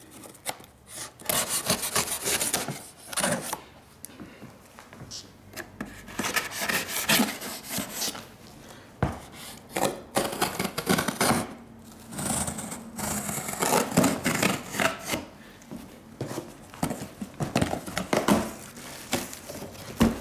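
A kitchen knife sawing and scraping through packing tape and cardboard along a box seam, in a run of irregular strokes. Near the end the cardboard flaps are pulled open.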